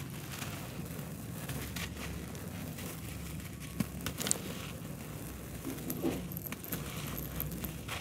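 A dry lump of red dirt crushed and crumbled in bare hands, a close gritty crunching and crackling with scattered sharp cracks, a few louder ones about four seconds in.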